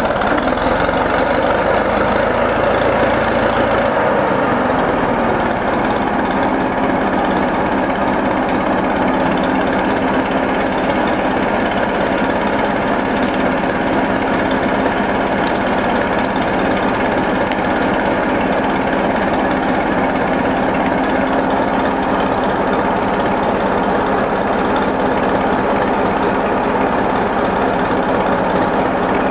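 McCormick-Deering 10-20 crawler's four-cylinder engine running, slowing over the first few seconds and then idling steadily with a fast, even firing beat.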